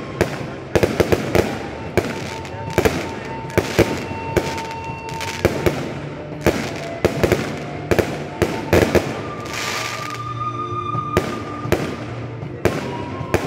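Fireworks display: aerial shells launching and bursting overhead in an irregular run of sharp bangs and pops, a few a second, with music playing underneath.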